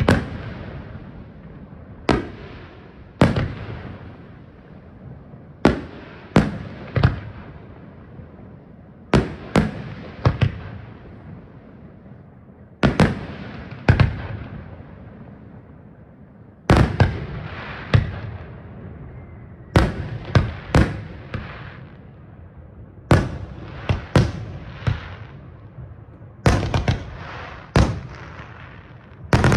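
Aerial firework shells bursting in an irregular sequence, single and paired bangs every second or two, each followed by a fading crackling tail.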